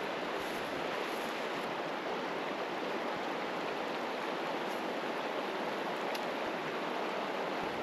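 The Salmon River running over rocks: a steady, even rush of flowing water.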